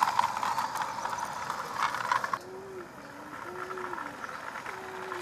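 A battery-driven model garden-railway locomotive running along the track, a busy clatter of geared motor and wheel clicks that cuts off abruptly about two and a half seconds in. Afterwards fainter ticking goes on, and a bird coos in a run of short, low notes.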